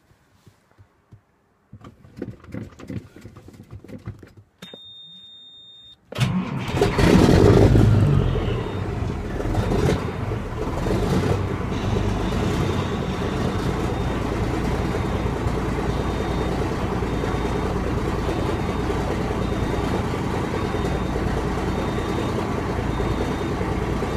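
Caterpillar 3406B inline-six truck diesel, rated 425 hp, cold-started after sitting for a week. After a few soft knocks and a steady high tone lasting about a second and a half, the engine fires about six seconds in and is loudest for the first couple of seconds. It then settles into a steady idle, with a faint high beep repeating over it.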